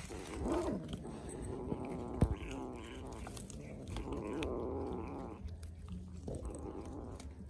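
Kitten eating raw fish and giving low cries: a short one near the start and a longer, wavering one around the middle, with a sharp click a little after two seconds in.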